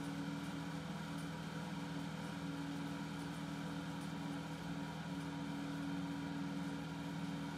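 Steady low machine hum made of several constant tones, over a faint even hiss.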